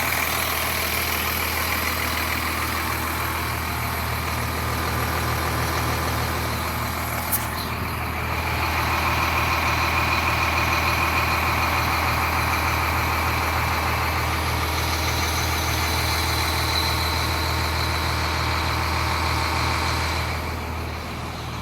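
A school bus's diesel engine idling steadily, a low even hum with a faint rapid pulse, and a single sharp click about seven seconds in.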